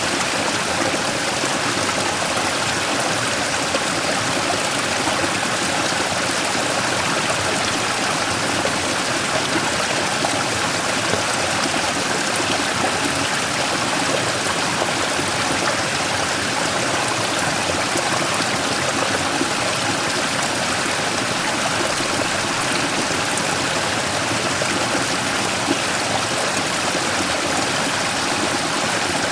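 Mountain stream flowing steadily over a large rock in a small waterfall, an even rush of water.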